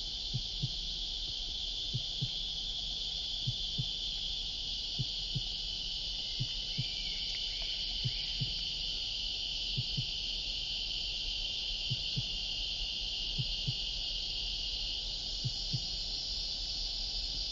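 A steady high-pitched drone of summer cicadas calling together. Under it come soft low thumps in pairs, about every second and a half, and a brief faint chirping call about halfway through.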